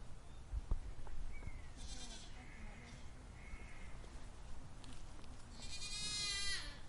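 A goat bleating: one long, wavering bleat near the end, with fainter calls and a few soft knocks before it.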